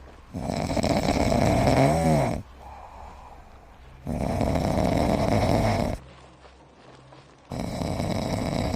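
Heavy snoring from a sleeping pet: three long, loud snores about three and a half seconds apart. The first ends with a brief whistling glide in pitch.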